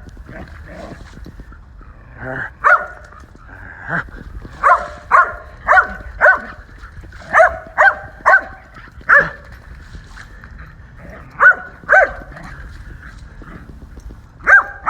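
Dog barking in short, single barks, about a dozen of them, most in a quick run in the first half, then a pause of a couple of seconds before a few more.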